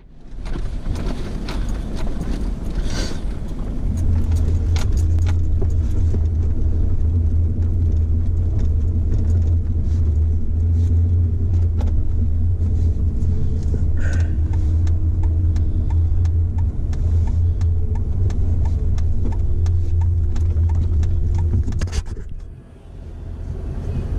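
Steady low drone of a car driving, heard from inside the cabin, with small rattles and clicks throughout; it drops away briefly near the end.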